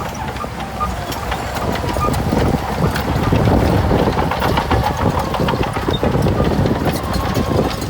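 Heavy earthmoving machinery: a diesel engine running steadily under many short, sharp clanks and rattles of metal and rock.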